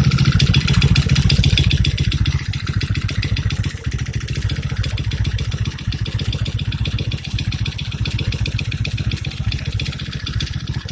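Chinese ATV engine running with rapid, even firing pulses, louder for about the first two seconds and then dropping back to a steady, lower idle.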